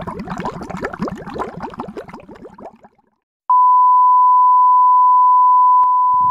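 A watery bubbling sound fades out over the first three seconds. After a short silence, a loud, steady TV test-card beep (a single 1 kHz reference tone) sounds for about three seconds and then cuts off abruptly.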